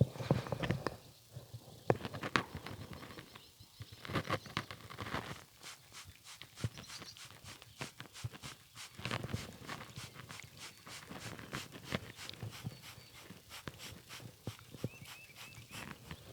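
Horse's hooves stepping and shuffling on hard ground: a run of irregular clip-clops and knocks.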